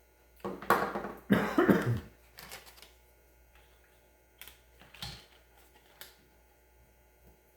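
A man coughing and clearing his throat, two strong bursts in the first two seconds, followed by a few light clicks.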